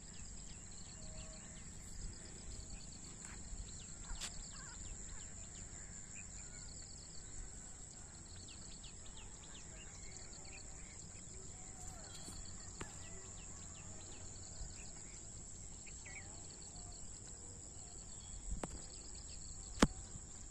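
Steady high-pitched insect drone with short pulsing trills that repeat every second or so, and faint scattered bird chirps. A single sharp click sounds about a second before the end.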